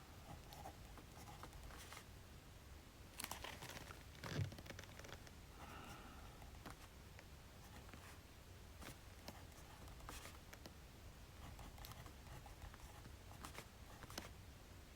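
Faint writing on paper and paper handling: scattered light scratching and rustling, with louder rustles about three seconds in and a soft thump about four and a half seconds in.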